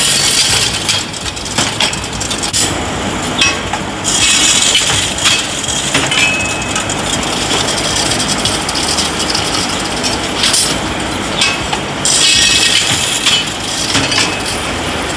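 Welding-electrode factory machinery running as a continuous noisy din, with frequent metallic clinks and knocks and three louder hissing spells.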